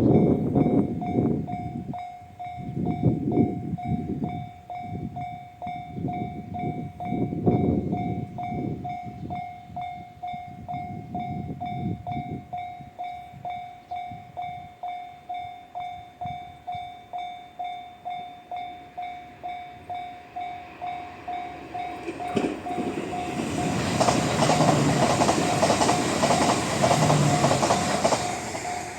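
Japanese level-crossing alarm in the JR standard tone, dinging steadily about twice a second, with irregular low rumbles in the first several seconds. About 23 seconds in, an E8 series Yamagata Shinkansen passes through the crossing without stopping. The rush of the train and the clatter of its wheels over rail joints drown out the bell for about five seconds, then cut off.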